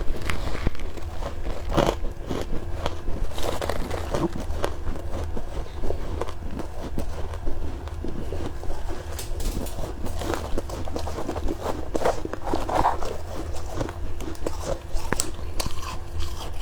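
Close-up crunching and chewing of soft freezer frost: irregular crisp bites and crackles, over a steady low hum.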